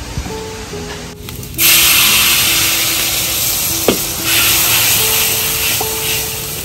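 Food hitting hot oil in a pan and sizzling loudly, starting suddenly about a second and a half in and carrying on steadily, with a single clink of a utensil near the middle.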